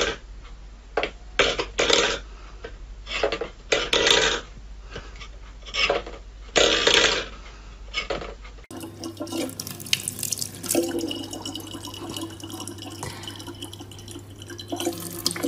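Stainless steel food bowl knocking and clattering on a wooden floor as a cat bats at it, in a series of short sharp clanks. A little past halfway this gives way to a thin stream of water running from a tap spout into a plastic bottle, over a low steady hum.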